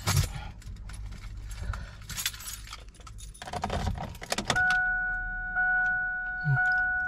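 Car keys jangling and rattling at the ignition of a Kia, then a click as the key is turned about four and a half seconds in, after which the dashboard chime sounds as a steady two-note beep that repeats about once a second.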